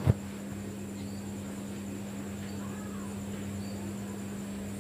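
A steady low hum with a faint high whine, broken about a tenth of a second in by a single short thump. A few faint, short high peeps follow.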